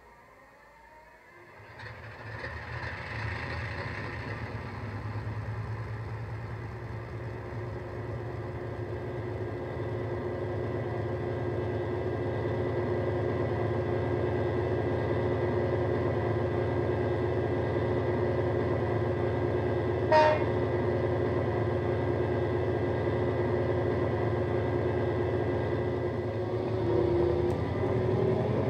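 DCC sound decoder in a Dapol Class 68 model locomotive, playing a Coastal DCC recording of the Class 68's Caterpillar V16 diesel through an EM2 speaker. The engine starts up about two seconds in, then settles into a steady, deep idle. There is a brief sharp sound about twenty seconds in, and the engine note changes near the end.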